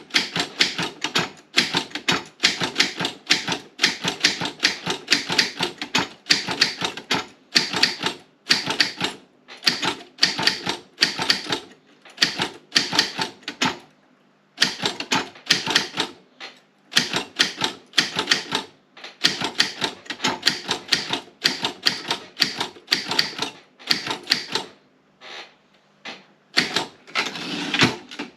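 Optima M16 typewriter being typed on at a brisk pace: rapid runs of sharp key-and-typebar strikes, broken by a couple of short pauses.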